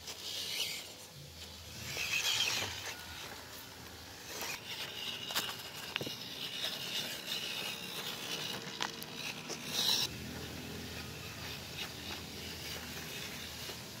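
Small electric motor and gears of an MN99S radio-controlled crawler whirring unevenly as it climbs over rocks, with its tyres scraping and clicking on the stones. The motor gets louder about two seconds in and again near ten seconds.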